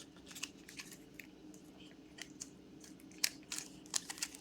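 Trading cards being handled and sorted by hand: faint, irregular clicks and flicks as cards are picked up, slid apart and set down, the sharpest a little after three seconds in.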